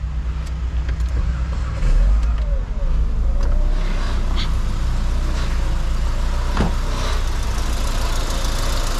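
Mitsubishi four-cylinder engine starting about two seconds in and then idling steadily, running on a newly installed replacement engine computer that has cured its misfire and vibration.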